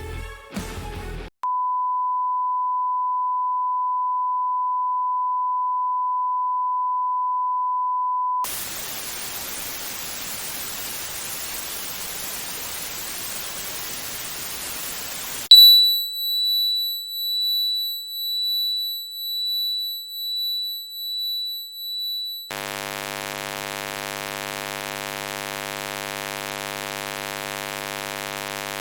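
Simulated tinnitus sounds played one after another: a steady high-pitched pure-tone ring for about seven seconds, then an even white-noise hiss, then a higher tone pulsing about once a second, then a low buzz rich in overtones. Music fades out just as the sequence begins.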